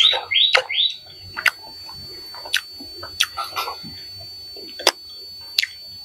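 A bird calling a quick run of rising chirps, about three a second, that stops about a second in. After it come scattered short clicks and smacks of a man chewing and eating meat with his hand.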